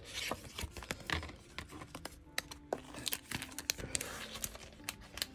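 Paper sheets and a plastic sleeve being handled: a quick, irregular run of small clicks, taps and rustles.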